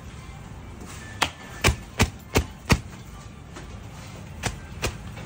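Palms slapping coiled parotta dough flat on a stone counter: five sharp slaps in quick succession about a second in, then two softer ones near the end.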